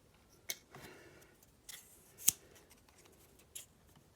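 Scissors opening and closing in a few separate snips: sharp clicks of the blades, the loudest a little past two seconds in, with a brief soft rustle near one second.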